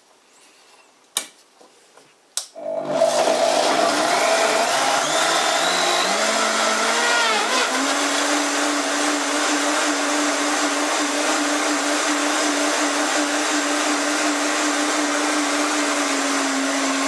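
Harrexco high-performance blender with a stainless-steel jar liquefying onions, garlic, oil, water and soy sauce into a smooth sauce. After two clicks the motor starts about two and a half seconds in, rises in pitch over several seconds to a steady high whine, and cuts off suddenly at the end.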